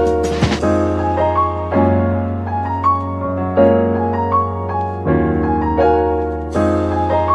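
Background music: a piano-like keyboard plays sustained chords that change about every second and a half, with a simple melody on top.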